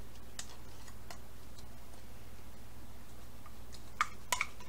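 Light clicks and clinks of a utensil working tomato paste out of a metal can: a few faint ticks, then two or three sharper clinks about four seconds in. A steady low hum runs underneath.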